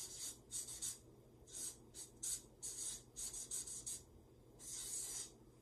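Marker writing on paper flip-chart sheets: a run of short, quick strokes, with one longer stroke near the end.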